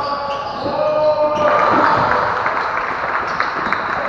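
Basketball game play on a wooden court in an echoing sports hall: a ball bouncing, players' footsteps and shoe squeaks, and players calling out, with a drawn-out call in the first second and a half.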